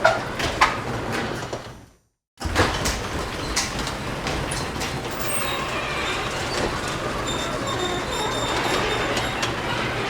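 Garage door rolling along its tracks with a steady rattling run and scattered sharp clicks. The sound fades out about two seconds in, stops briefly, then starts again abruptly and runs on steadily.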